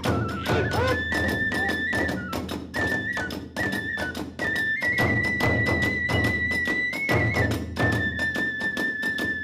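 Kagura hayashi at a fast tempo: a bamboo transverse flute holds long, high notes that step in pitch, over rapid, driving beats from the drums and small hand cymbals.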